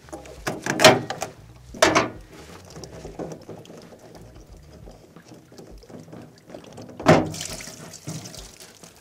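Plastic cartridge filter housing on a rainwater pump controller being unscrewed by hand: a couple of sharp knocks and scrapes of plastic near the start, then water splashing out as the housing comes free about seven seconds in.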